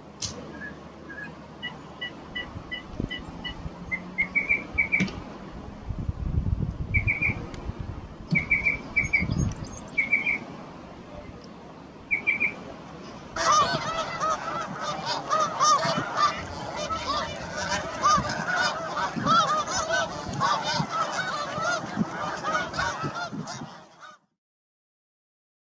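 Small birds chirping in short, spaced notes, then from about halfway a flock of geese honking in a dense, overlapping chorus that cuts off suddenly near the end.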